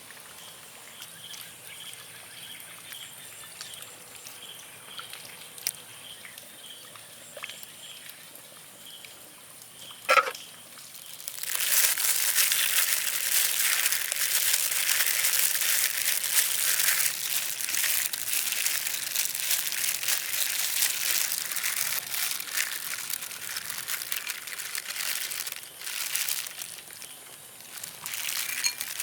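Pork belly cooking for chicharrones. A quiet hiss gives way, after a single utensil knock about ten seconds in, to loud, dense sizzling and crackling of the pork in the pot, easing briefly near the end.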